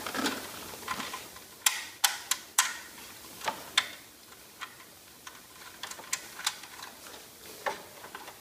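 A screwdriver driving sheet metal screws through a car stereo's metal mounting cage into a plastic dash bezel: irregular sharp clicks and ticks of metal and plastic, several louder ones in the first half and fainter ones after.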